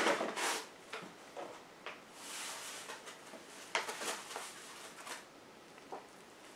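Cornmeal poured from a paper bag into a measuring cup. The bag rustles, the meal runs with a soft hiss for about a second, and the cup gives a few light clicks and knocks.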